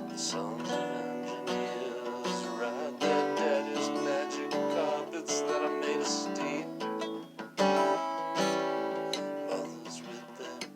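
Acoustic guitar strummed, ringing chords with steady strokes.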